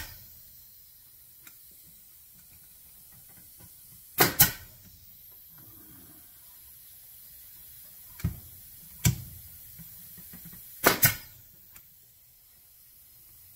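Pneumatic brad nailer firing 1-inch brads into the wooden box, six sharp bangs in all: a quick pair about four seconds in, two single shots a second apart around eight to nine seconds, and another quick pair near eleven seconds.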